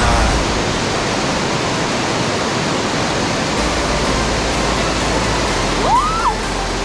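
Waterfall: a steady rushing of falling water. About six seconds in, a single whistled call rises and then drops back.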